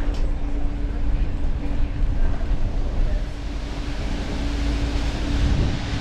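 Bus in motion, heard from its upper deck: a steady low rumble of engine and road with a constant droning hum.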